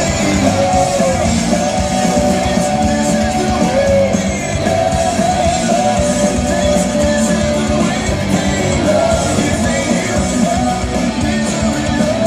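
Loud rock music with electric guitar and a singing voice, playing without a break.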